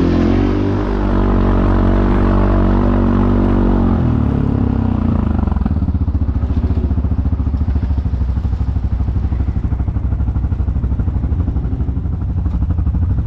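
An ATV engine running under throttle, then backing off about four seconds in and settling to a steady, pulsing idle.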